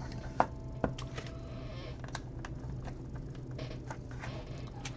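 LEGO plastic tiles and plates being handled and pressed onto a build: a run of small clicks and light rattles, with two sharper clicks about half a second and a second in.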